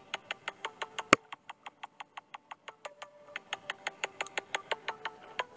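Background music: a fast, even run of percussive clicks, about seven a second, over a few held notes that shift in pitch, with one sharp, louder click about a second in.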